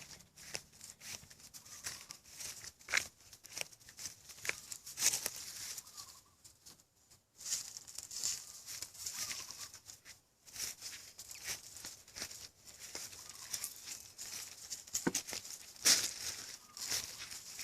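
Dog burying a duck-carcass bone: irregular scratching and rustling with short scrapes, a few of them sharper and louder.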